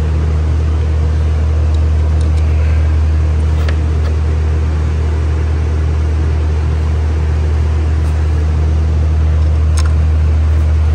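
Loud steady low hum of a running machine, unchanging, with a few faint clicks about four seconds in and again near ten seconds as small parts are handled.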